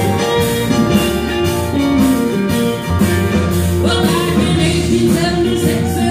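Live country band playing a song intro on electric guitars with drums, a woman's voice beginning to sing about four seconds in.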